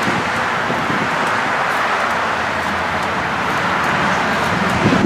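Steady vehicle road noise, an even rushing hiss with a low hum under it.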